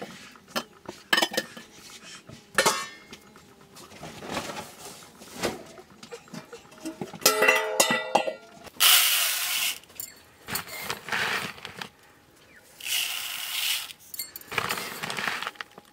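Aluminium pots and dishes clinking and knocking as they are handled, with several short bursts of splashing water as rice is washed in a plastic bowl.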